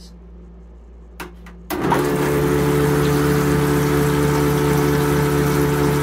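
Electric recirculating camper toilet flushing: a click, then its flush pump motor starts abruptly with a steady hum, and water rushes and swirls through the bowl. This is the start of its timed flush cycle.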